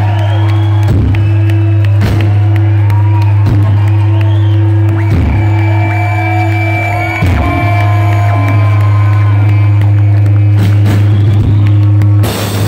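Live rock band music at a concert: a loud, steady low drone held throughout, with the crowd whooping and cheering over it.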